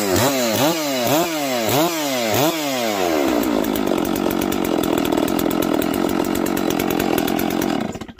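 Farmertec Holzfforma G660 two-stroke chainsaw, just cold-started at 6°F on factory carb settings, revved in several quick throttle blips that rise and fall in pitch, then settling to a steady idle before being shut off abruptly near the end.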